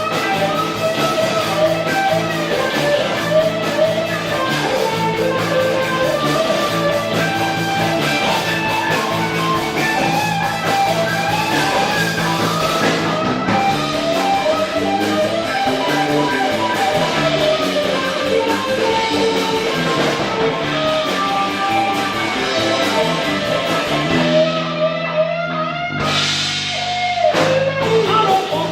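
Live rock band playing, with guitar to the fore over drums.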